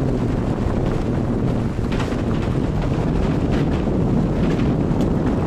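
Wind buffeting the camera's microphone: a steady rumbling noise.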